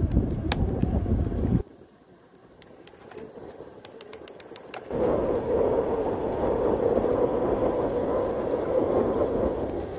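Wind buffeting the microphone and road noise while riding a bicycle downhill. The rumble cuts out abruptly after about a second and a half, leaving a quieter stretch with faint scattered clicks. About five seconds in, a steady rushing noise comes back.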